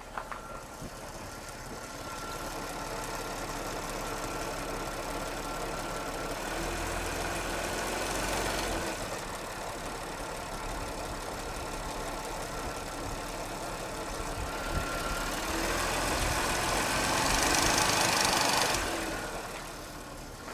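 Audi A6 3.0 TFSI supercharged V6 engine running, swelling louder twice before settling back.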